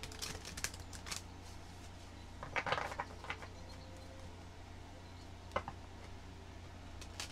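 A deck of oracle cards being shuffled and handled by hand: scattered papery flicks and rustles of the cards, with a denser flurry about two and a half seconds in and a single sharp snap of a card later on.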